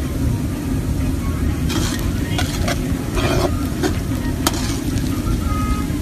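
Metal ladle stirring sliced onions in hot oil in a large metal pot, with a run of sharp scrapes and clanks against the pot in the middle seconds. A steady low rumble lies under it throughout.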